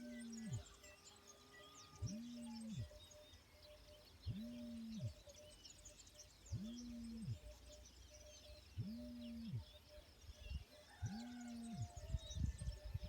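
A low hooting call repeats evenly about every two seconds over a busy chorus of small birds chirping and twittering. A faint low rumble comes in near the end.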